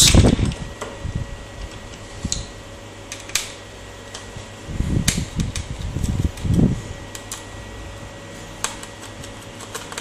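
Small screwdriver turning out the screws of a laptop's plastic RAM compartment cover: scattered light ticks and clicks, with a few low knocks of hands handling the laptop base between about five and seven seconds in, over a steady fan-like hum.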